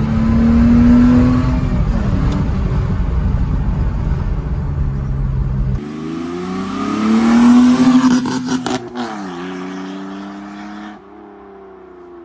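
BMW E30's straight-six engine pulling hard through a modified exhaust with the rear silencer removed. First heard from inside the cabin, rising in pitch then settling. Then, about six seconds in, heard from the roadside: the car accelerates past with the engine note climbing, drops in pitch as it goes by, and fades away.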